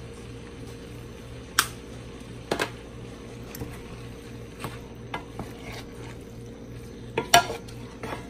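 A spatula stirring chicken pieces in a square nonstick skillet, scraping and knocking against the pan. There are a handful of sharp knocks, the loudest near the end, over a steady low hum.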